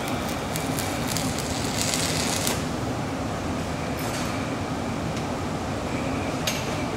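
Stick-welding arc of a 5/32-inch 7018 electrode at 170 amps crackling as the rod, laid along the joint, burns down by itself to its end; the crackle cuts off about two and a half seconds in. A steady low machine hum runs underneath, with a single click near the end.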